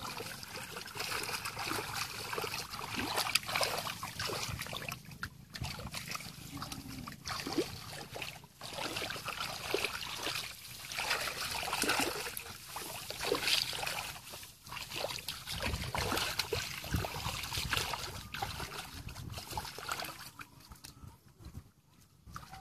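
Hands groping and splashing in shallow muddy water: irregular sloshes and splashes, with a few duller low thumps about two-thirds of the way through.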